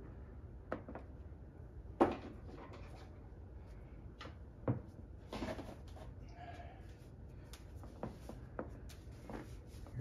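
Handling and rummaging noises: a sharp knock about two seconds in and another near five seconds, with lighter clicks and rustling between, as items are picked through and moved about.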